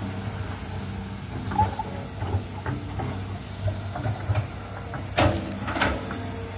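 Tracked hydraulic excavator's diesel engine running steadily while it digs a ditch, with irregular clanks and scrapes from the bucket and arm working in the trench; the two loudest come a little after five seconds in.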